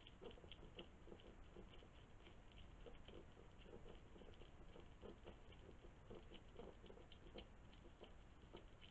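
European hedgehog eating from a feeding dish: faint, quick, irregular chewing and smacking clicks, several a second.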